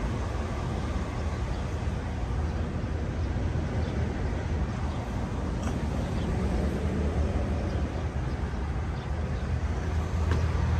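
Steady low rumble of a vehicle engine running, with no change in pitch.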